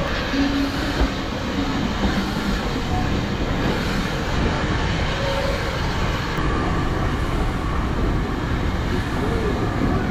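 Heritage train running along the line: a steady rumble of wheels on rails, with a few faint brief squeals.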